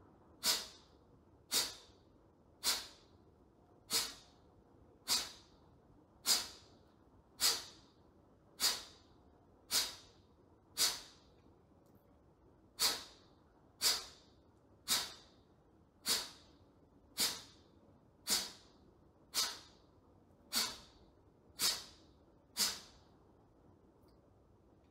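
Kapalabhati breathing: about twenty short, forceful exhalations, one roughly every second, each a sharp hiss that fades quickly. One beat is skipped about halfway through. The inhalations between them are not heard.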